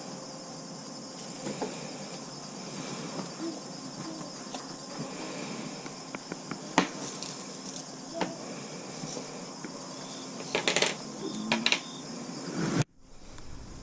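Scattered light clinks and knocks of small objects being handled, over a steady high-pitched hum, with a quick flurry of clinks near the end before the sound cuts off abruptly.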